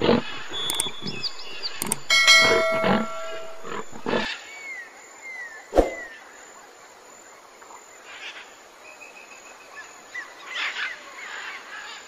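A lioness growling in a run of short, rough bursts over the first four seconds or so, then falling quiet. A single sharp click comes about six seconds in, and faint high chirps follow.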